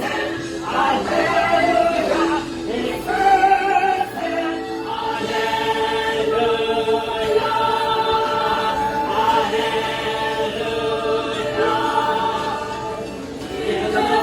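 Church choir singing, with shorter changing notes at first and then long held notes through the middle.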